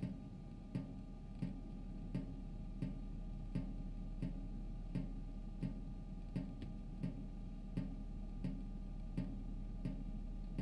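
Evenly spaced sharp ticks, about three every two seconds, over a low steady hum.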